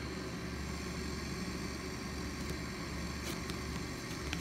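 Steady low machine hum, with a couple of faint clicks near the end.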